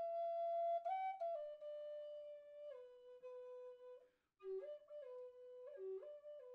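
Soft background music: a single instrument playing a slow melody of long held notes that step downward, then a brief break about two-thirds in followed by a few shorter notes.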